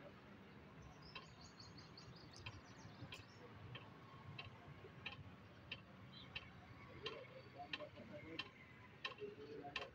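Near silence: faint outdoor ambience with scattered light ticks at irregular intervals, and a bird chirping briefly about a second in.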